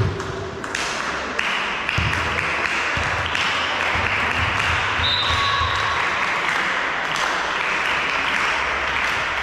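Volleyball spectators clapping and cheering, building up about a second in and then holding steady.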